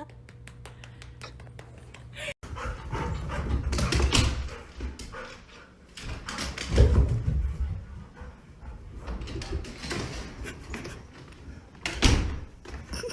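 A dog vocalising in several short bursts a few seconds apart.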